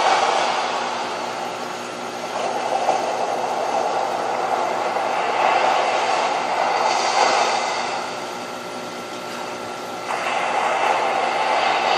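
Steady rushing of circulating water and pumps in an aquarium holding system, with a faint steady hum riding on it. The rush dips a little about two seconds in and again between eight and ten seconds.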